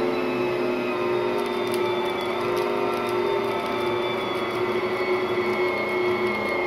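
Bosch Universal Plus stand mixer running steadily, its dough hook kneading a large batch of stiff sugar cookie dough. Light clicks and knocks from the dough join in from about a second and a half in.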